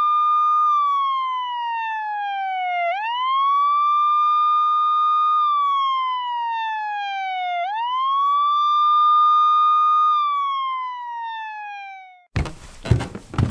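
Siren wailing in a repeating cycle: the pitch climbs quickly, holds for a couple of seconds, then falls slowly, starting over about every four and a half seconds. It cuts off suddenly near the end, giving way to a rapid run of knocks and clatter.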